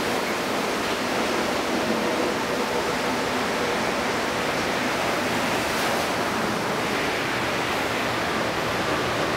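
Rubber-tired Canadian Vickers MR-63 metro train running past the platform: a steady rushing noise with a faint low hum underneath.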